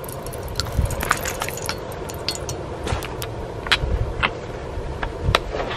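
Oil crackling and spitting in a hot steel frying pan on a gas camping stove as the pan is seasoned, irregular sharp ticks over a low rumble.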